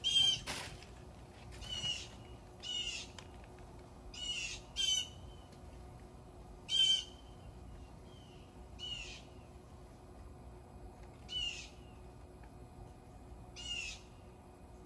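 A bird calling over and over: short calls that fall in pitch, about nine of them, one every one to two seconds or so.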